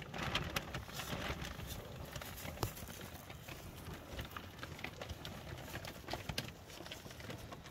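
Beef cattle feeding close by: irregular crunches and soft knocks, a few a second.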